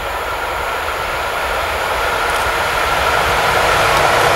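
Siemens EuroSprinter ES 64 F4 electric locomotive hauling a container freight train, approaching and growing steadily louder, a rumbling rush of wheels on rail with a steady whine over it.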